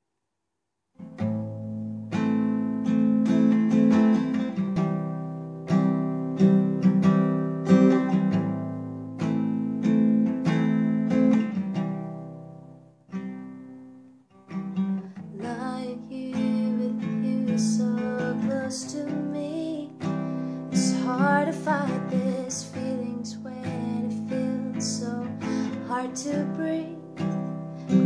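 Acoustic guitar playing the intro chords of a song, starting about a second in. The playing fades almost away in the middle, then picks up again. A soft voice comes in over the guitar in the second half.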